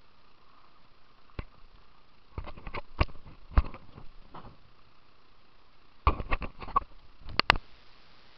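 Handling noise from a handheld camera: irregular knocks and clicks as it is gripped and swung about. They come in two clusters, about three seconds in and again about six to seven and a half seconds in, over a faint steady hiss.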